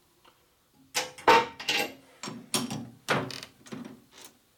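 Metal clanks and knocks from a chuck key being worked in a lathe's four-jaw chuck, about eight irregular sharp strikes with a short ring after each.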